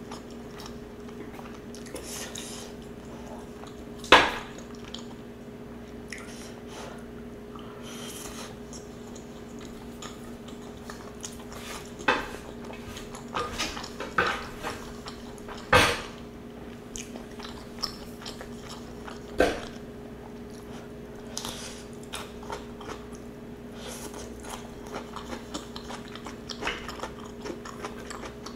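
Eating close to the microphone: quiet chewing of jambalaya penne pasta, broken by a few sharp clicks of a metal fork and a wooden spatula against the electric griddle pan, the loudest about four seconds in. A steady low hum runs underneath.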